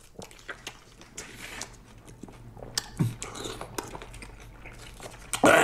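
A person biting into and chewing crunchy food close to the microphone, with many small crunching clicks. A brief vocal sound comes about three seconds in, and a loud voice breaks in near the end.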